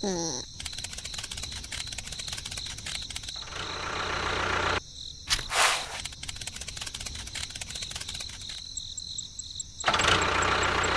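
A small electric motor running, with a fast, even ticking, cut off and restarted abruptly a few times.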